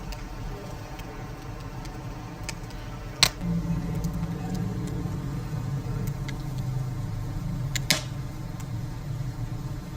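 Wood fire burning with a steady low rumble and scattered crackles, with a loud sharp pop about three seconds in and another near eight seconds.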